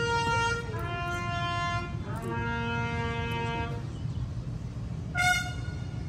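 Military bugle call: three held notes stepping down in pitch, the lowest held longest, then a short high note about five seconds in, over a low background rumble.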